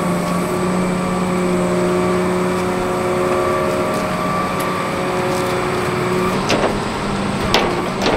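A truck engine idling with a steady droning hum, with a few sharp clanks near the end.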